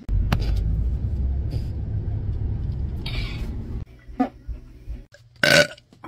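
A long, low, rumbling gush of bodily gas lasting about four seconds and stopping abruptly, followed near the end by a short, loud vocal sound.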